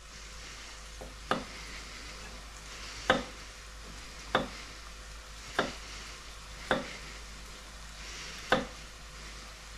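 Chef's knife cutting garlic cloves on a wooden cutting board: six separate knocks of the blade hitting the board, one to two seconds apart. Under them is a steady sizzle of leeks sweating in butter and oil.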